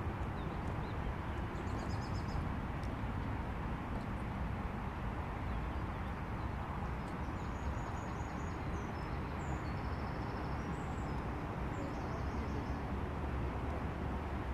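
Steady low outdoor rumble with faint, high bird chirps now and then, mostly in the second half.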